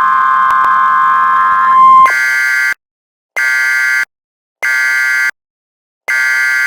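Mock Emergency Alert System tones: a steady alarm tone that stops about two seconds in. It is followed by four short buzzing bursts of the EAS digital data signal, separated by brief pauses.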